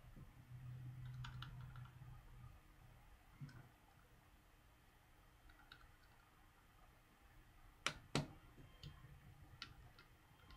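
Faint clicks and taps of a small smartphone's parts and tools being handled during reassembly, with two sharper clicks close together about eight seconds in. A faint low hum runs for about two seconds near the start.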